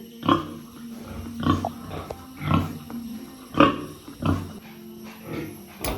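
Pigs grunting and squealing in short calls, roughly one a second.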